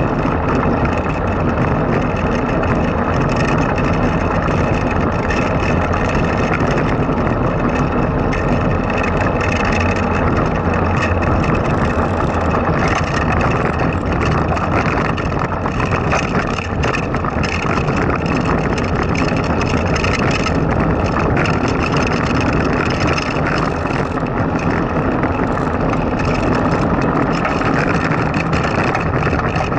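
Blokart land yacht rolling at speed over rough asphalt: a steady rumble from its small wheels and frame, mixed with wind rushing past the camera mounted on it.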